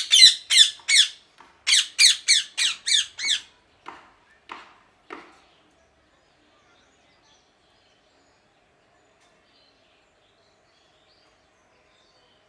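Ringneck parrot giving a rapid run of about ten loud, shrill calls, some three a second, followed by three fainter calls.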